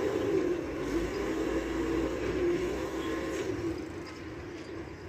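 Heavy mobile crane's diesel engine running under load as it hoists a wrecked truck on slings, a drone whose pitch wavers up and down over a low rumble. It eases off near the end.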